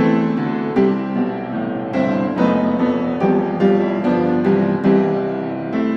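Background instrumental music with a keyboard melody, notes struck at about two or three a second.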